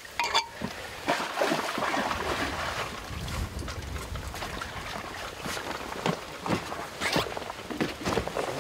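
Water trickling and splashing, with scattered knocks and rustles, as weed is pulled by hand from the propeller of a tilted-up outboard motor; the motor is not running.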